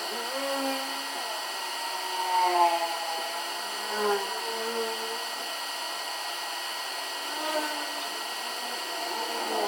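Hot air rework station blowing with a steady hiss, used to heat the board so the A15 chip can be lifted off. Faint wavering tones sound in the background.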